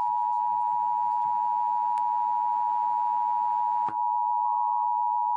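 Emergency Alert System two-tone attention signal: two steady sine tones, 853 and 960 Hz, sounded together. It marks the start of an EAS alert, here the coordinated monthly test. A faint hiss under it drops away about four seconds in.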